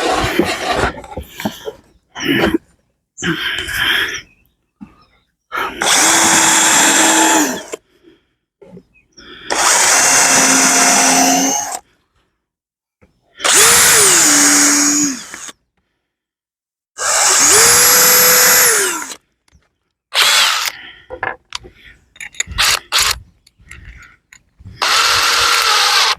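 Power drill driving concrete-board screws into a wooden beehive deep box: four runs of motor whine about two seconds each, plus a shorter one near the end, with the pitch sagging partway through some runs. Short clicks and knocks of handling sound between the runs.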